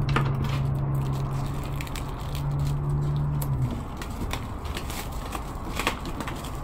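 Plastic wrapping film crinkling and crackling as it is pulled off a machine, many small irregular crackles. A steady low hum underneath stops a little over halfway through.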